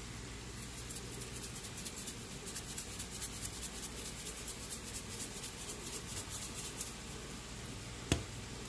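Vegetable seasoning shaken from a spice shaker over food in a frying pan: a quick, even run of light rattling ticks for about six seconds over a steady low hum, then a single click near the end.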